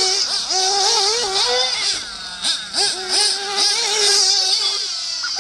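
Hyper 7 RC buggy's motor running with a high buzzing whine, revving up and down as it drives the course, with a dip about two seconds in and a steady high run before it fades near the end.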